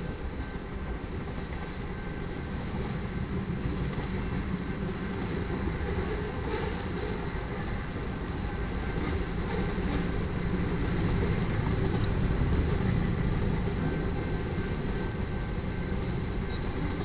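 Freight cars of a manifest train rolling past, tank cars and covered hoppers, with a continuous rumble and clatter of steel wheels on rail that swells a little past the middle.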